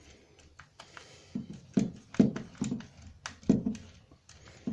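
Insulated screwdriver turning and tightening the line terminal screws on a British General USB double socket, with the conductors clamping down: a run of irregular short creaks and clicks, busiest from about a second and a half to four seconds in.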